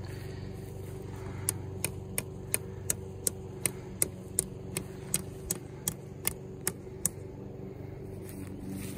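A motor running with a steady low hum, and a run of about sixteen sharp, evenly spaced clicks, nearly three a second, starting about a second and a half in and stopping about seven seconds in.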